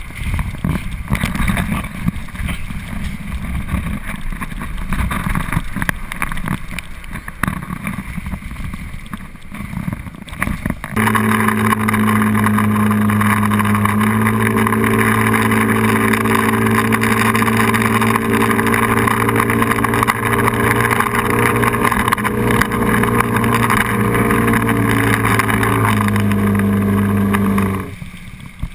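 For the first ten seconds or so, rushing water and wind buffet a camera on a towed inflatable tube. Then a Johnson outboard motor runs steadily under way over the churning wake, its pitch stepping slightly a couple of times, before the rushing water and wind return near the end.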